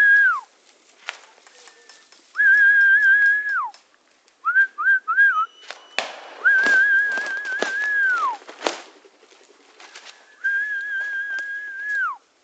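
High, steady whistle blasts of one to two seconds each, every one dropping in pitch as it dies away, with a quick run of three short pips midway. The whistling is a handler's signal to a working gundog. Scattered clicks and crackles of brush and twigs sound underneath.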